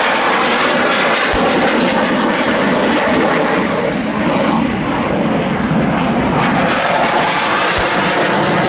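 F-16 fighter jet's engine roaring steadily as the jet flies low over the airfield. Two brief low thumps come through, about a second in and near the end.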